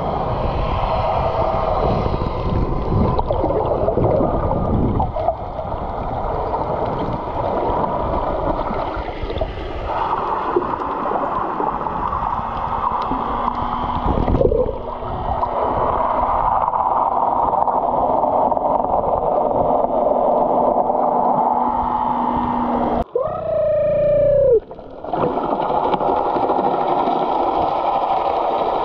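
Underwater rushing and hissing water noise, with a brief run of falling dolphin whistles near the end.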